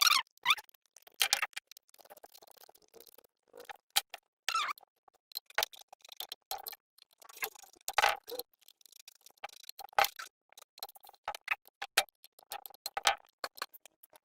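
Irregular clicks, taps and clinks of hand tools and small metal parts being handled during work on a portable generator, with louder knocks at the start, about eight seconds in and about ten seconds in.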